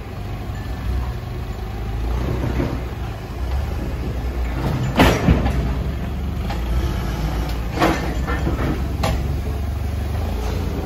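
Propane-powered Toyota forklift engine running steadily as it drives a pallet into a box truck. A loud metal clank comes about five seconds in, with lighter knocks a few seconds later, as the forklift rolls over the steel dock plate.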